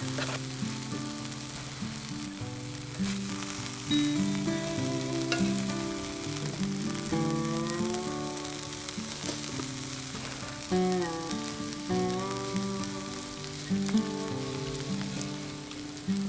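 Steady sizzling with fine crackling from the wood-fire grill, under gentle background music with sustained, changing chords.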